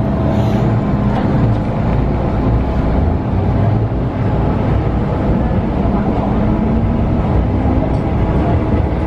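MTR Tsuen Wan Line electric train running, heard inside the passenger car: a steady rumble of wheels on the track with a faint motor hum.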